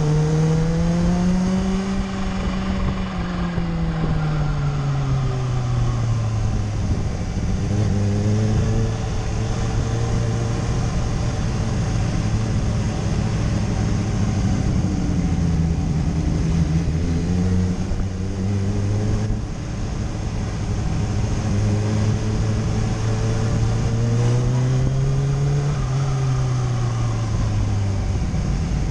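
Kawasaki Ninja H2's supercharged inline-four engine at low revs while riding, its pitch rising and falling gently several times as the throttle is rolled on and off, over a steady rush of wind.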